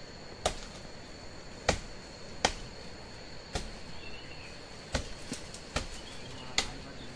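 Machete chopping into the fibrous trunk of a sugar palm, about eight sharp chops at uneven intervals of roughly a second, some coming in quick pairs. A thin steady high insect drone runs behind.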